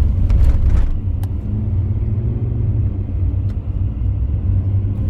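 Car interior noise while driving: a steady low rumble of road and engine with a constant hum, heard from inside the cabin.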